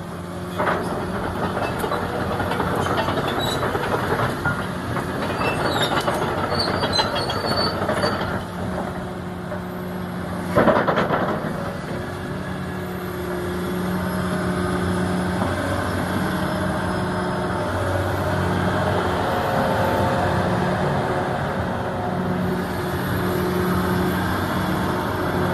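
Komatsu PC450 hydraulic excavator running, with a steady engine hum under metallic clanking and squeaking from the machine. One loud clank comes about ten and a half seconds in.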